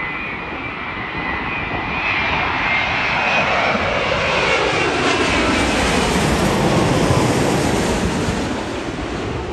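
Boeing 787-9 with Rolls-Royce Trent 1000 engines on final approach, flying low overhead. The engine noise builds to a peak about seven seconds in, and an engine whine slides steadily down in pitch as the jet passes.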